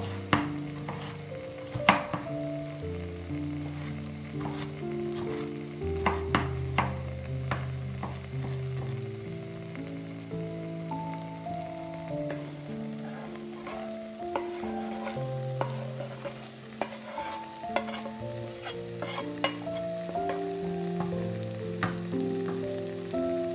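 Diced onion sizzling in a pot on an induction hob, with scattered sharp clicks and taps of a knife and wooden spoon; diced carrot and celery go into the pot near the end. Soft background music with slow, held notes plays throughout.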